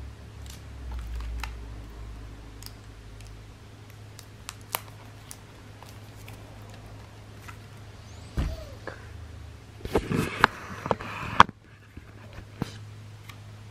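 Hands handling a plastic PET drink bottle wound with fishing line: scattered small clicks and rustles, a thump about eight seconds in, then a burst of louder knocks and plastic rustling that stops abruptly near the end.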